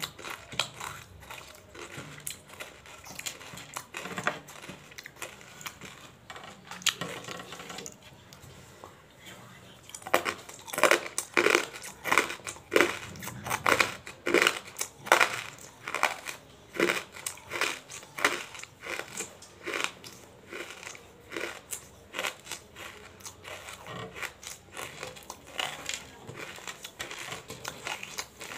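Close-miked chewing of hard tabasheer (bamboo silica) crystals: a dense run of sharp, brittle crunches. The crunching is loudest and fastest from about a third of the way in to past the middle, and lighter at the start and near the end.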